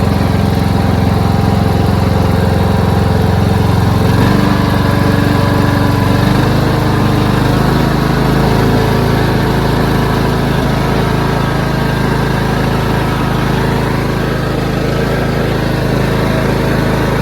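Craftsman LT2500 hydrostatic lawn tractor's engine running steadily while driving, its tone shifting about four seconds in.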